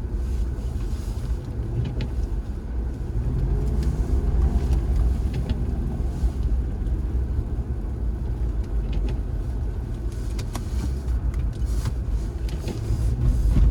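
Jaguar XJR's supercharged V8 running as the car drives on a snowy, salted road, heard from inside the car as a steady low rumble with tyre and road noise.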